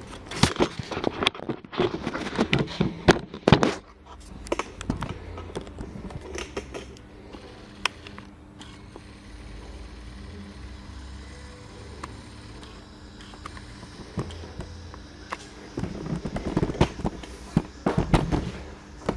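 A run of sharp knocks and clicks for the first few seconds, then a steady low hum with scattered single clicks, and another cluster of knocks near the end.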